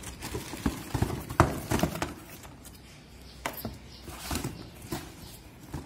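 Irregular knocks, clatters and scrapes of a cardboard box and its folded cardboard packing inserts, with plastic wrap rustling, as a plastic-wrapped exhaust fan is lifted out of the box. The loudest knock comes about a second and a half in.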